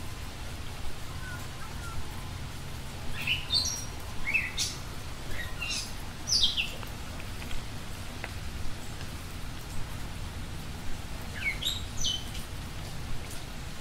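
Small songbird calling in three bursts of short, sharp chirps that sweep up in pitch, about three seconds in, about six seconds in, and near the end, over a steady low background hiss.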